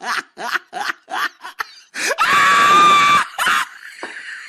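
A person's laugh in quick short bursts, about five a second, then about two seconds in a loud held scream lasting just over a second, from a meme sound-effect compilation.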